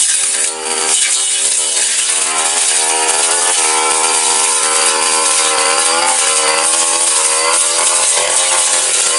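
Backpack brush cutter's engine running at high speed, its pitch wavering up and down as it works, with a brief dip about half a second in.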